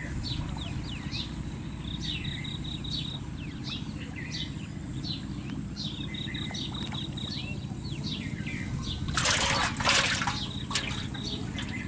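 Birds chirping again and again over a steady low rumble, with a loud splash of water lasting about a second a little after nine seconds in.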